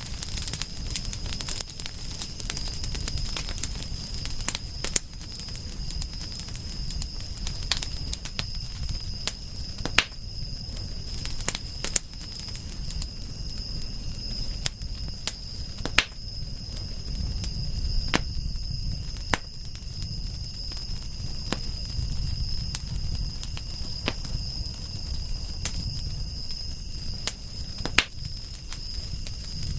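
Campfire burning, with frequent irregular sharp crackles and pops over a low rumble of flame. A steady high-pitched tone sits underneath.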